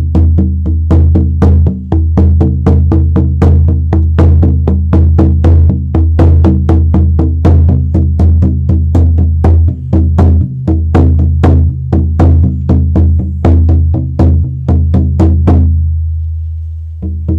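Horse-skin frame drum on a 17-inch willow frame, struck steadily with a hard beater at about four beats a second, its deep tone ringing on under each stroke. Near the end the beating stops and the drum rings down before the strokes start again.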